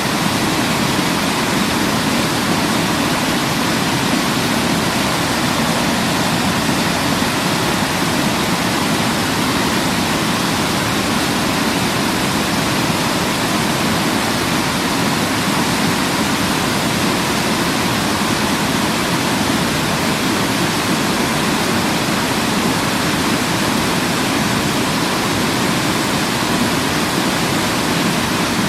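Waterfall rushing in a steady, even wash of falling water, with no breaks or changes.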